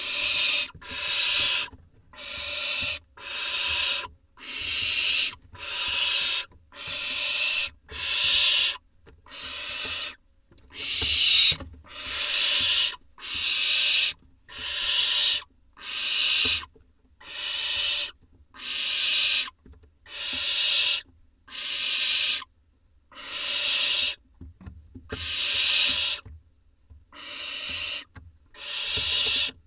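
Barn owl nestlings giving their rasping, hissing food-begging calls, the so-called snoring. The calls come in a steady series, each lasting most of a second and repeating about every second and a half.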